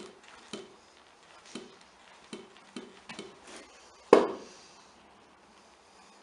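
Removed rear shock absorber being handled, knocking and clicking inside in short sharp strokes, with one loud metallic clank about four seconds in that rings briefly. The knock comes from its piston having unscrewed from the rod and the internals having come apart, after the rod nut was tightened with an impact wrench.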